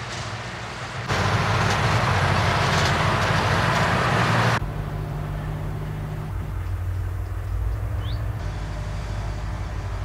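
Engine-driven machinery running steadily, heard in shots cut together. Loud rushing noise lies over the engine hum from about one to four and a half seconds in, then a lower, steadier engine hum continues.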